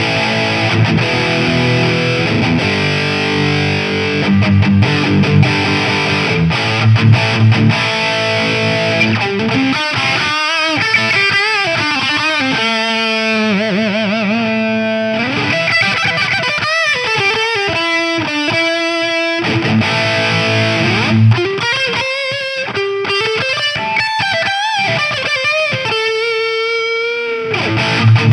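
Distorted electric guitar played through a home-built British 800-style (JCM800 clone) tube amp, pushed by an overdrive pedal boosting its front end. It opens with low chugging chords, then moves into single-note lead lines with bends and vibrato.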